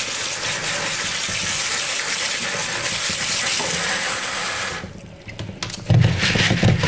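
Kitchen tap running onto dried red kidney beans in a plastic colander, a steady rush of water that stops about five seconds in. After it, the colander is moved and the wet beans shift about inside it with a rough, uneven rustle.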